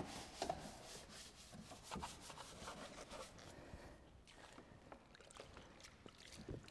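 Bristle detailing brush scrubbing wet, cleaner-covered plastic and metal in a car engine bay: faint, irregular scrubbing strokes that thin out after about three seconds.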